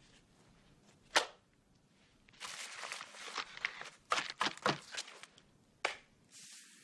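A single sharp thump about a second in, then crinkling and tearing of Pixy Stix paper straws with a run of quick sharp rips and clicks, followed near the end by a faint hiss of sugar powder being poured out.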